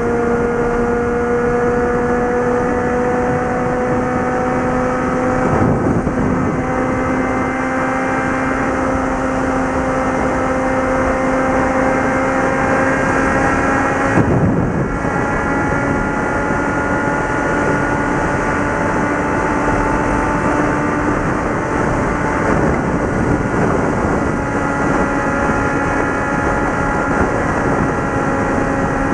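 Suzuki GSX650F's inline-four engine and exhaust running at highway speed, its note creeping slowly higher as the bike gains speed, over steady wind rush. Two brief whooshes break through, about six and fourteen seconds in.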